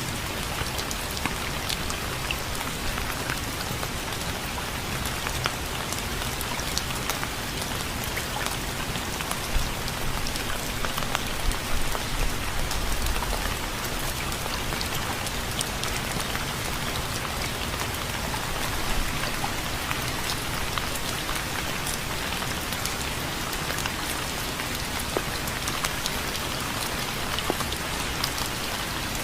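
Steady rain falling on a surface, an even hiss with many separate drops striking. It swells a little about halfway through.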